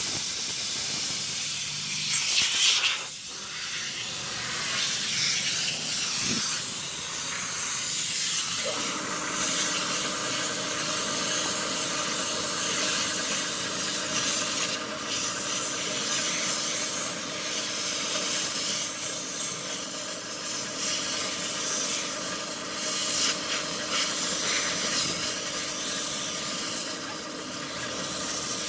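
Compressed air hissing from an air compressor's blow gun, varying in strength as it is played over a ten-wheeler truck's air-filter element to blow out dust. A steady hum joins about nine seconds in.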